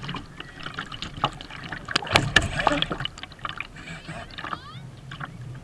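Water splashing and slapping against the hull of a Kyosho Seawind RC sailboat driving through rough chop, an irregular run of splashes with a heavier burst about two seconds in.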